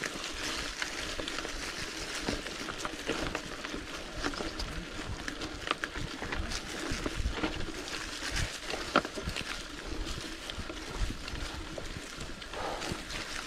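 Mountain bike tyres rolling over a dry, leaf-covered dirt trail, with a constant crackle and many small sharp clicks and rattles from leaves, twigs and the bike.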